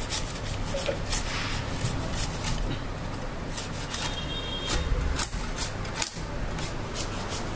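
A broad cleaver blade scraping along the skin of a whole cobia in a series of short strokes, over a steady low hum.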